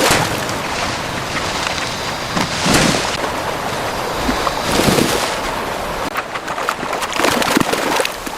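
A steady rushing noise with louder swells about every two to three seconds.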